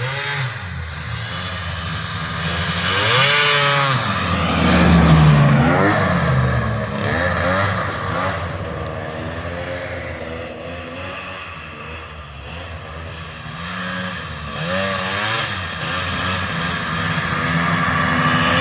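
Custom 1979 Polaris Centurion snowmobile's two-stroke 650 triple engine, taken from a 1991 Indy 650, revving up and easing off repeatedly as it is ridden. It is loudest about five seconds in, with another climb in pitch late on.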